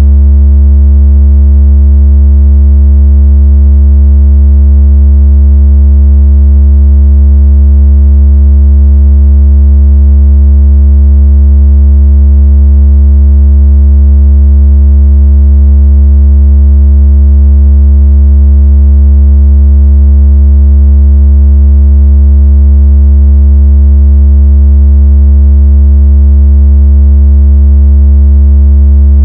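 Very loud, steady, deep synthetic tone with faint evenly spaced overtones, unchanging throughout: a speaker water-ejection and vibration sound meant to shake water out of a phone speaker.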